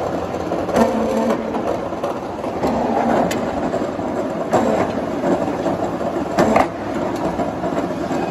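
Wire-pointing machine running, a steel rod being fed through its grooved rollers to taper the rod's end, with a steady mechanical rumble and clatter. Four sharper knocks come at uneven intervals.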